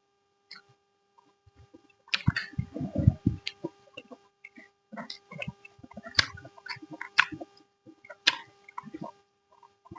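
Close-miked eating: irregular wet chewing and lip-smacking clicks of a mouthful of curry and rice, busiest from about two seconds in, over a faint steady electrical hum.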